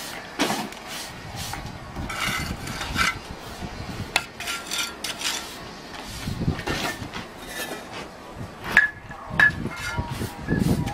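Steel bricklaying trowel tapping and scraping on bricks and mortar, with a few sharp knocks, some of them ringing briefly like metal.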